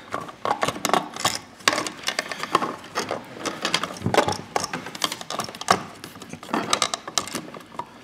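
Irregular clicks, knocks and scraping as a wired receptacle is pushed and shifted into a wall electrical box, its metal mounting strap and stiff copper wires rubbing against the box.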